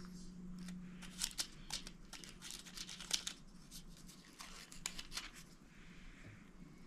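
Thin protective plastic film being peeled off a video doorbell, crackling and crinkling in a quick run of sharp snaps for a few seconds.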